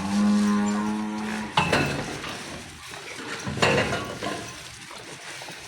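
A buffalo gives one long, steady call of about a second and a half. Two short, noisy bursts follow, about two seconds apart.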